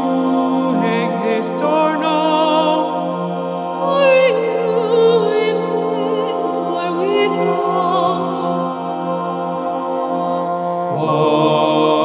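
Mixed choir of men's and women's voices singing, with a low note held steadily underneath while higher voices move above it with vibrato. Near the end the harmony shifts as lower notes come in.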